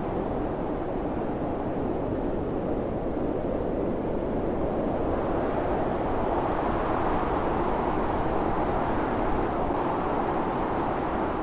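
Blizzard wind blowing steadily in a dense rushing roar, swelling slightly and easing again over several seconds.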